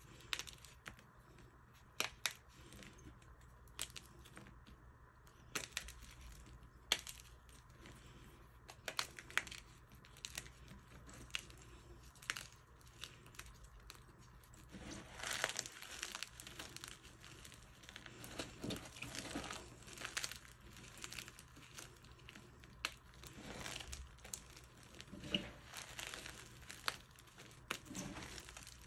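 Hands crushing and kneading crumbled purple dyed chalk blocks, with crisp, crunchy cracks as the chunks break and grind together. The cracks come singly every second or two at first, then from about halfway run together into a denser, gritty crunching.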